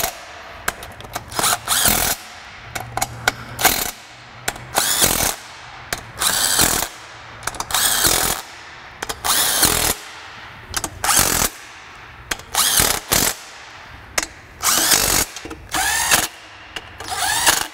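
DeWalt cordless impact running intake manifold nuts down in about a dozen short trigger pulls, each a brief whir that rises in pitch, with pauses between.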